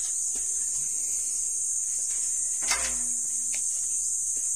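Steady, high-pitched insect chirring, with a light knock and a click around the middle as metal bearing parts are handled.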